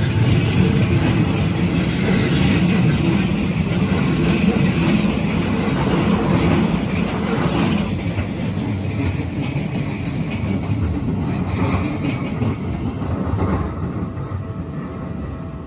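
Keikyu Line electric train running past a level crossing, a steady rumble of wheels on rail that dies away near the end.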